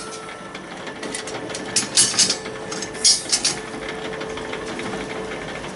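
Electric rotisserie motor humming steadily while a stainless perforated basket spit is fitted onto its drive, with two short runs of metal clicking and clanking about two and three seconds in.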